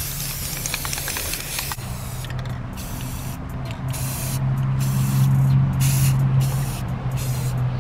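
Aerosol spray-paint cans hissing: one continuous spray of about two seconds, then a run of short on-and-off bursts as paint is sprayed onto water for hydro dipping. A steady low hum runs underneath.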